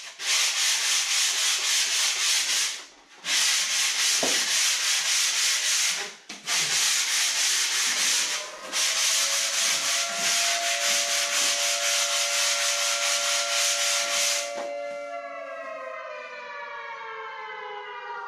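Sandpaper rubbed back and forth along the edge of a pink extruded-polystyrene foam board, in four runs broken by short pauses, stopping about two-thirds of the way through. A siren sounds behind it, holding a steady pitch and then sliding downward near the end.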